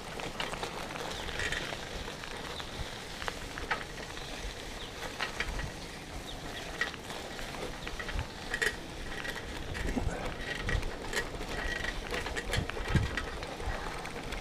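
Bicycle ride on a rough track: irregular clicks and rattles from the bike, with low thumps of wind or bumps on the camera microphone and a few short high chirps.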